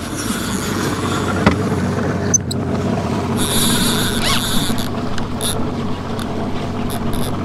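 Small outboard motor running on a fishing boat, under steady wind and water noise on the open sea, with a brief high hiss about three and a half seconds in.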